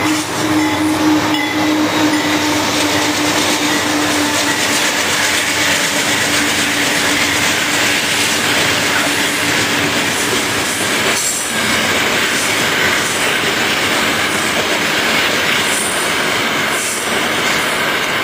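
CSX freight train rolling past: a steady drone in the first half, then freight cars passing with wheels clattering and squealing on the rails.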